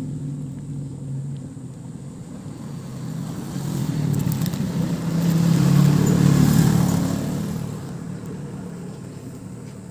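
A motor vehicle passing by, its engine growing louder to a peak about six seconds in and then fading away.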